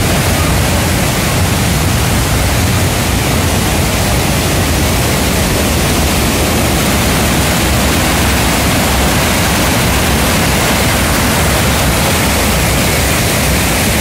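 Loud, steady rush of white water tumbling over the rocks of the Düden Waterfall cascade.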